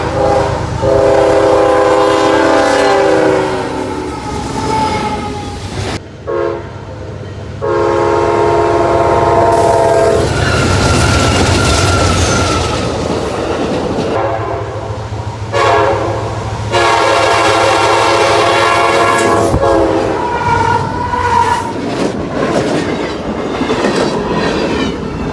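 CSX freight locomotive's multi-chime air horn sounding a series of long blasts with a short one between, as the train approaches a grade crossing, over the low rumble of the diesel and wheels clicking over rail joints.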